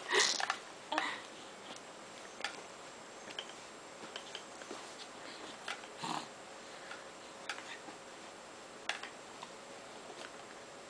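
Quiet room with a few short, soft sounds scattered through: a baby's small grunts and sniffs and light clicks of the hanging play-gym toys he is batting, with a louder sound right at the start.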